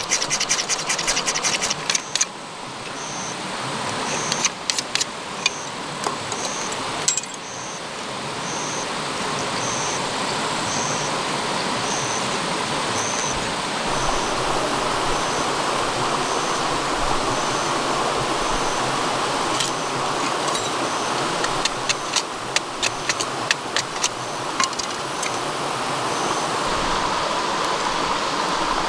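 Metal scraped along a fire-starting rod over dry wood shavings, sharp scratching for the first couple of seconds, then the steady rush of a shallow stream, which grows louder about halfway through. Sharp crackles of a freshly lit wood fire come in a cluster in the second half.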